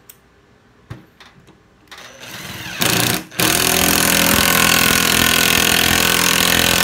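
A cordless drill's motor spins up with a rising whine about two seconds in and stops briefly. It then runs loud and steady under load, boring into very hard wood. A few light clicks come before the motor starts.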